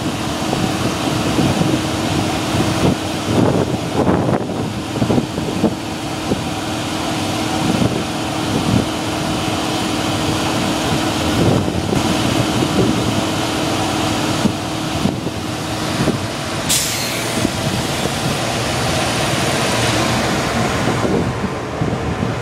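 JR Freight EF210 electric locomotives standing with their equipment running, a steady hum and noise, with scattered light knocks. A short, sharp hiss of released air comes about seventeen seconds in.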